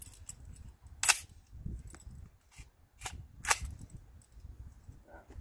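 Custom-built AR-15-style rifle fired in semi-automatic: three shots, one about a second in, then two about half a second apart around three seconds in.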